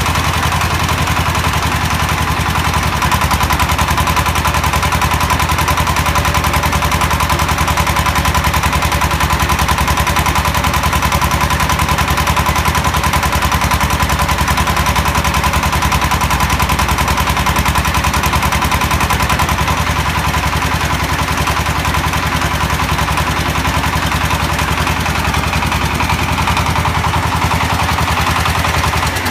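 Concrete mixer truck's diesel engine running steadily to turn the mixing drum, with a fast, even clatter and a steady high whine above it.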